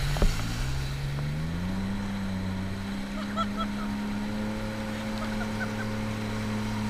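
Jet ski engine running under way, its pitch rising over the first two seconds and then holding steady, with water rushing past the hull. A brief thump just after the start.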